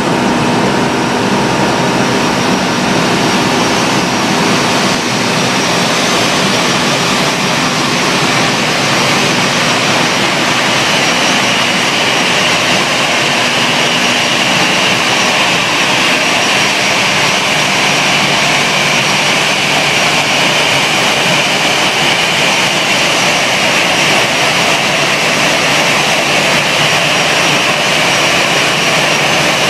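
Airbus A320 jet engines running, a loud steady rush with a high whine that grows stronger about ten seconds in.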